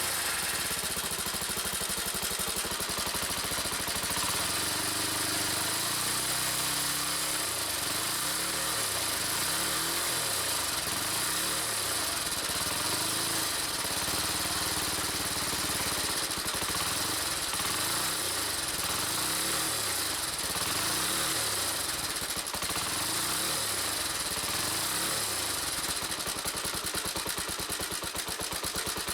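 Honda CBX125 motorcycle engine running and being revved up and down several times, over a steady high hiss. It is being run up to check for an odd noise that appears when the revs rise.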